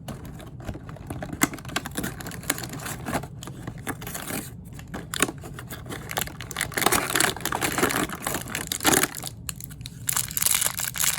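Small plastic blind bag being crinkled and torn open by hand to get at a toy figure: irregular crackling and rustling, with heavier bursts of crinkling in the second half.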